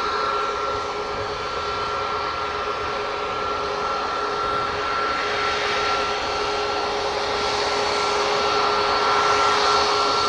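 Boeing 737 MAX 8's CFM LEAP-1B turbofan engines at taxi power: a steady jet whine with two held tones, one high and one low, growing slightly louder near the end.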